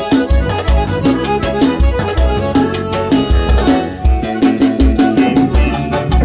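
Instrumental passage of a piseiro song, no vocals: a heavy bass beat pulsing about twice a second under a melody line.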